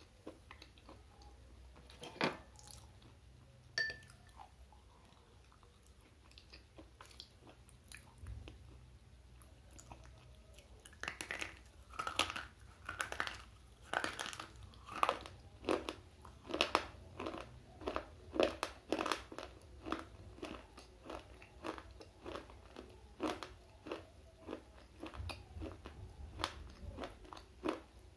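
Slate pencil bitten and chewed close to a lapel microphone. Two sharp snaps come in the first few seconds. From about eleven seconds in there is a long run of crisp crunches, about two to three a second, that grows softer toward the end.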